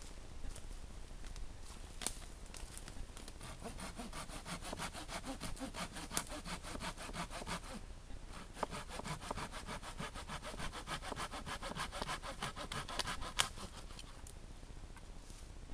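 Hand saw cutting through a thin wooden pole in quick, even back-and-forth strokes. There are two bouts of sawing with a short pause between them, and they end in one sharp crack near the end.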